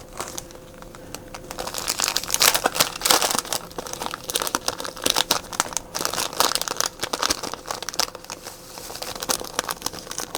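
Crinkling and rustling of plastic flash tinsel (Flashabou) being handled for a jig skirt, in dense irregular crackles, over a faint steady hum.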